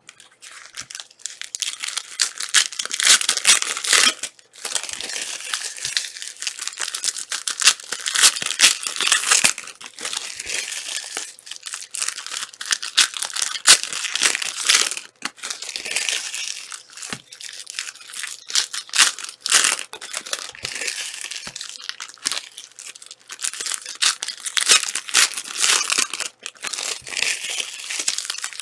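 Plastic trading-card wrappers being torn open and crinkled by hand: a near-continuous rustling crackle with brief pauses.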